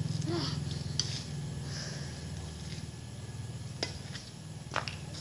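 A few sharp clicks of a badminton racket striking a shuttlecock: one about a second in, another near four seconds, and a quick pair near the end. A steady low hum runs underneath.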